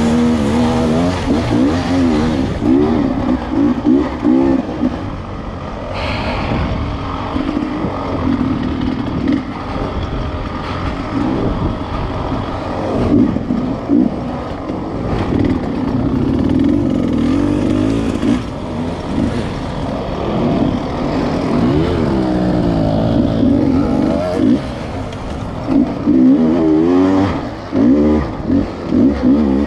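Dirt bike engine heard from on board, revving hard and constantly rising and falling in pitch with the throttle while climbing steep, rocky ground.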